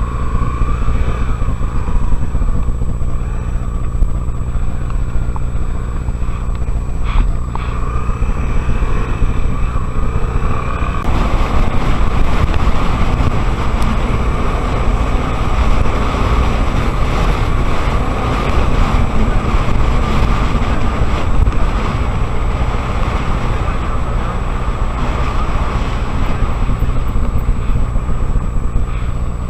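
Honda XR 250 Tornado single-cylinder four-stroke motorcycle engine running under way, a steady loud rumble that thickens about a third of the way in.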